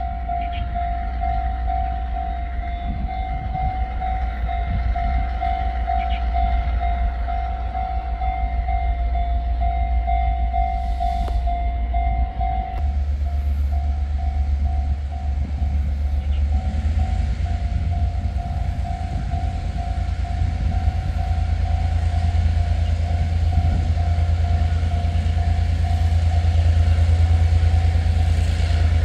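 Level-crossing warning bell ringing in evenly repeated dings over the low rumble of a diesel-electric locomotive's engine. The engine grows louder near the end as the train approaches.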